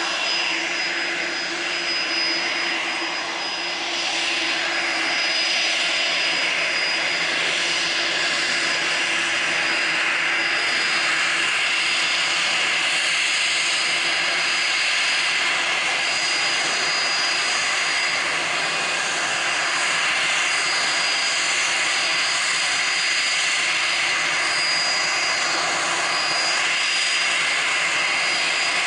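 Dassault Falcon 2000 business jet's turbofan engines running at taxi power: a steady jet rush with a thin high whine on top.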